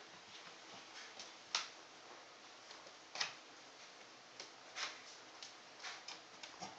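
A golden retriever puppy's claws and a tennis ball clicking and tapping on a tile floor: scattered light ticks at uneven intervals, the sharpest about one and a half seconds in, with others near three and five seconds.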